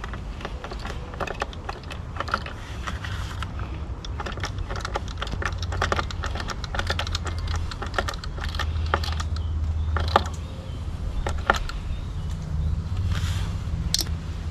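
Irregular small clicks and taps from a screwdriver and hands working at an SE Sport hydrofoil's bolt cover and its stainless steel screw on an outboard's lower unit, over a steady low rumble.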